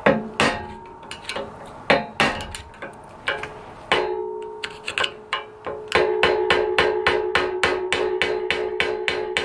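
Hammer striking a screwdriver set in the notches of a motorcycle's steering stem nut to tighten it, metal on metal. A few spaced blows, then from about six seconds in a quick run of light taps, about five a second, with the metal ringing between them.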